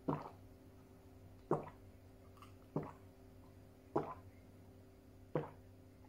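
A person gulping water from a glass: five swallows in a steady rhythm, about one every second and a quarter.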